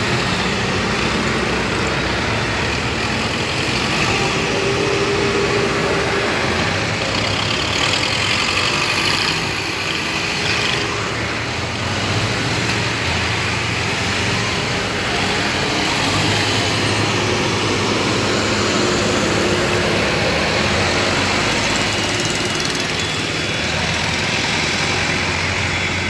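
Diesel farm tractor engines running as a line of tractors drives past one after another.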